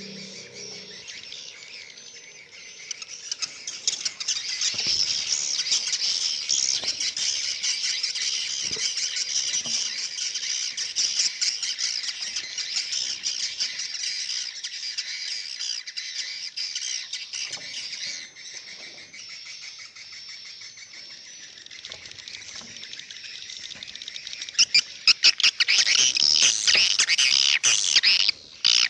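A flock of swiftlets twittering and chattering in a dense, rapid stream of high chirps and clicks inside a swiftlet nesting house. It swells a few seconds in, eases off past the middle, and is loudest again near the end.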